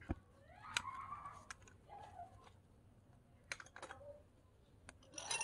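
Chickens clucking in the background, with scattered sharp clicks and taps, the strongest just at the start, as the long-nosed lighter is clicked and put down.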